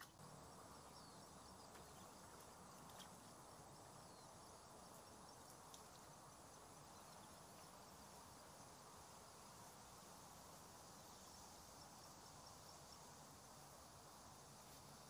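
Near silence: faint outdoor ambience with a steady high hiss and a few brief faint chirps.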